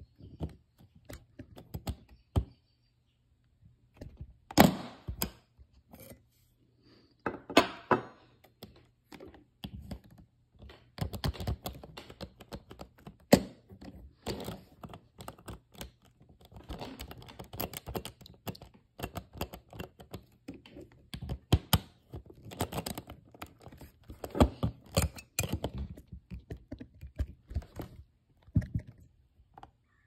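Irregular small clicks, taps and metal scraping from a Vaultz lock box's combination wheels being turned by finger and probed with a table knife, with a few sharper knocks.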